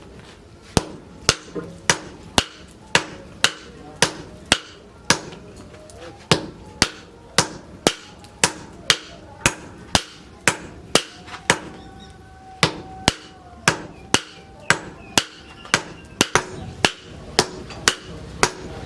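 Hand hammer blows on hot axle steel on an anvil, forging an axe head: sharp metallic strikes in a steady rhythm of about two a second, each with a short ring, broken by one brief pause past the middle.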